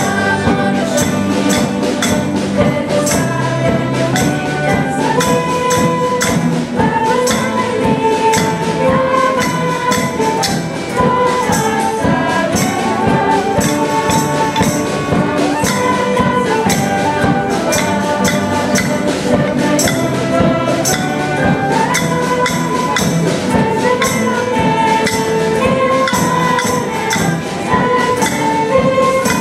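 A school choir singing with a student ensemble of violins, cellos, acoustic guitars and flutes, over a steady percussion beat.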